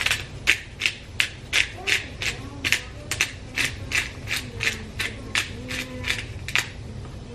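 Twist-top black pepper grinder being turned, giving a steady ratcheting click about three times a second; the clicking stops shortly before the end.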